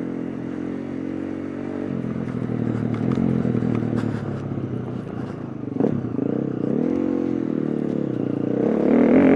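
KTM 350 EXC-F's four-stroke single-cylinder engine under riding, revving up and backing off as the throttle is worked, with a dip and a climb in pitch partway through. Light clattering comes through along with it.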